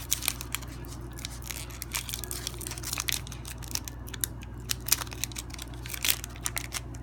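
Foil wrapper of a Pokémon Fossil booster pack crinkling and crackling in the hands as it is opened, a string of irregular short crackles and clicks over a low steady hum.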